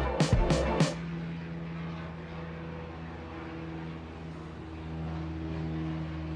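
Music with a sharp beat cuts off about a second in, giving way to a light aircraft's piston engine running at a steady drone.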